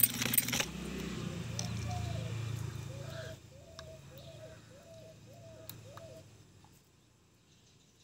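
A metal spoon clinks and rattles against a plastic cup for about half a second while stirring plaster of Paris slurry. Then a bird gives a run of short, repeated calls about once a second over a low hum that fades out a few seconds in.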